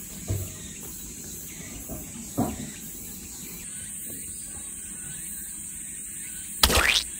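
Crickets and other insects trilling steadily outdoors, with a couple of faint knocks and one loud, brief, sharp noise near the end.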